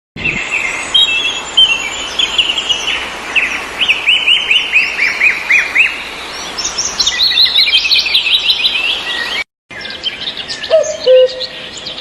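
Small birds chirping and singing in dense, rapid runs of short high notes. After a brief cut near the end, a sparser bird recording starts, with a low hooting call.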